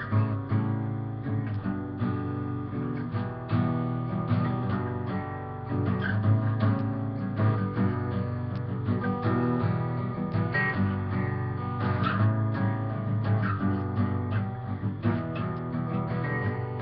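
Acoustic guitar strummed in a steady rhythm, full chords ringing between the strokes.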